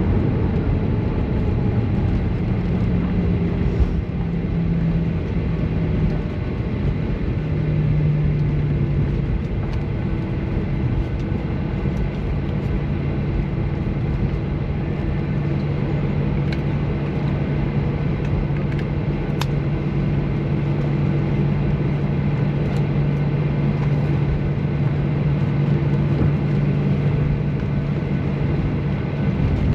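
Boeing 737 cabin noise as heard from a passenger seat: the jet engines and airflow make a steady rush with a low drone whose pitch steps down about six to eight seconds in and then holds.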